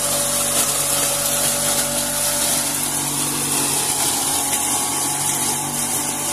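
Electric straw crusher (a hammer-mill type drobilka with a 3 kW, 3000 rpm, 220 V motor) running steadily as dry straw is fed in and shredded through its large screen. A constant motor hum sits under a dense hiss of chopped straw blowing out of the chute.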